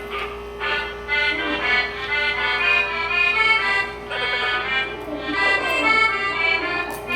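Accordion music: a melody of short notes played over a steady held note.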